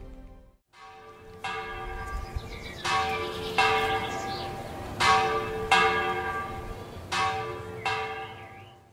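Bells struck in pairs of strokes a little over half a second apart, each pair following the last at about two-second spacing, the tones ringing on between strokes and fading out near the end.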